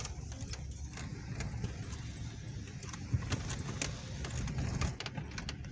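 Car driving slowly over a dirt forest track, heard from inside the cabin: a steady low engine and road rumble with scattered light rattles and clicks, one sharper knock about three seconds in.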